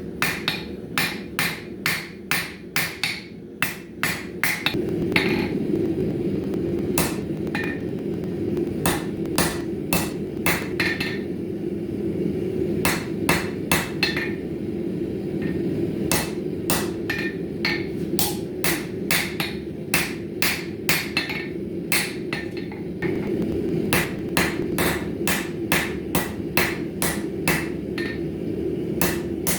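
Hand hammer forging a 1075 high-carbon steel bar on an anvil: sharp, ringing blows at about two to three a second, in runs with short pauses. A steady low rushing sound runs underneath from about five seconds in.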